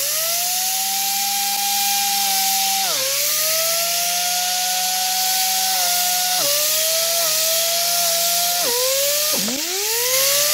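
Pneumatic disc sander running with a steady whine over an air hiss as it grinds down motorcycle seat foam. Its pitch sags and climbs back about four times, most deeply near the end, as the disc is pressed into the foam.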